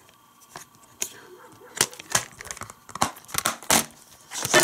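Plastic DVD cases being handled, opened and gathered together: a scatter of light clicks and rattles, with a louder clack near the end.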